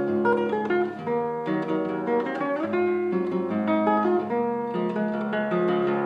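Background music: an acoustic guitar playing plucked notes and strummed chords at an even pace.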